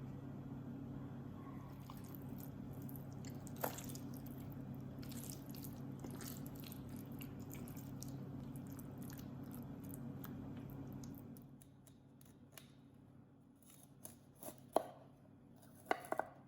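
A steady low hum that stops about two-thirds of the way through, with scattered light clicks; near the end, a few sharp knocks of a kitchen knife cutting on a chopping board.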